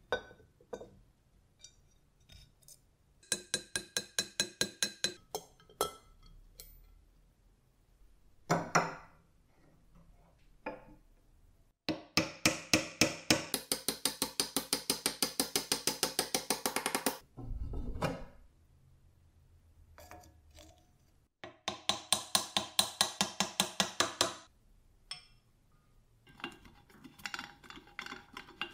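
Metal parts and tools clicking as the antique slicer's cast-iron base, steel column and fittings are put back together. Three long runs of rapid, even clicks, several a second, with single clinks and knocks between them.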